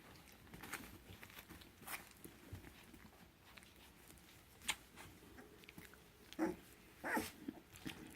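Puppies play-fighting: faint scuffling and mouthing clicks, with two short yips about six and a half and seven seconds in.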